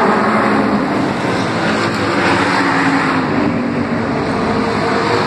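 Street stock race cars running laps together, a loud steady drone of several engines with the pitch shifting slightly as the cars go round.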